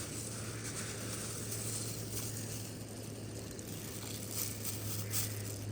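Pot of pork in water heating on a burner: a steady hiss with faint sizzling crackles over a low, even hum.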